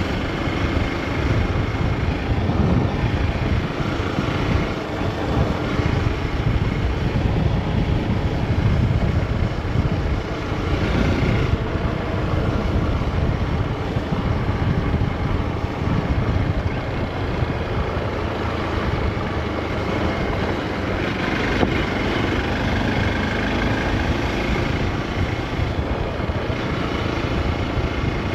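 Hero XPulse 200 4V's single-cylinder engine running steadily while the motorcycle cruises, mixed with wind rushing over the microphone.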